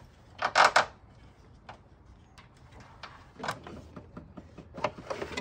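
Plastic engine cover being worked loose by hand: a loud scraping rustle about half a second in, then scattered clicks and knocks of plastic.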